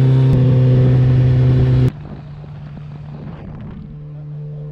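Campagna T-Rex's BMW six-cylinder motorcycle engine running at a steady pitch while driving, heard from the open cockpit. About two seconds in, the sound drops sharply to a quieter, steady engine hum.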